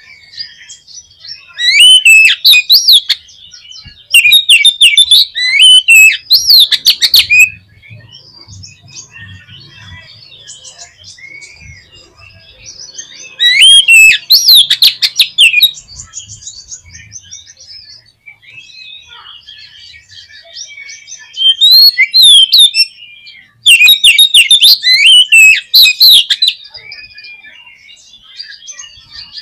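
Oriental magpie-robin (kacer) singing: several loud bursts of rapid, varied whistles and chatter, with quieter chirps between them. It is an excited song of the kind played as a provoking call to stir other kacer.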